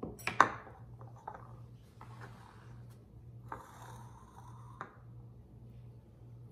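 A ceramic plate clinking and knocking on a granite countertop, with a sharp clatter about half a second in, then a few lighter knocks and a scraping slide before it comes to rest near the five-second mark.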